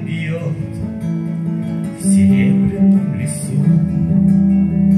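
Acoustic guitar playing an instrumental passage, strummed chords ringing over sustained low notes, with fresh strums about two seconds in and again a little later.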